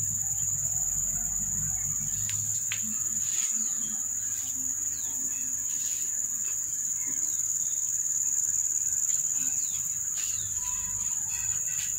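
Insects droning in a steady, high-pitched buzz, with a few short chirps scattered through it.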